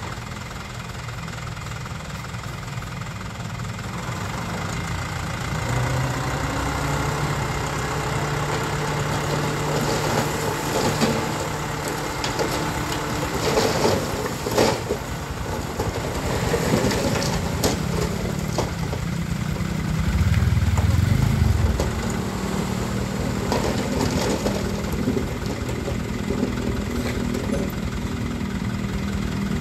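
Light diesel dump truck's engine running and revving up a few seconds in to drive the hydraulic hoist as the bed tips. Soil and stones clatter and thud as they slide out, with a louder low rumble about twenty seconds in.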